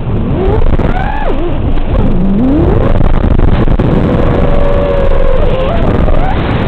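5-inch FPV quadcopter's DYS SHU 2306 2500KV brushless motors whining over a steady hiss, the pitch sweeping up and down with each throttle change. There is one quick rise in pitch a couple of seconds in, then a held tone near the end.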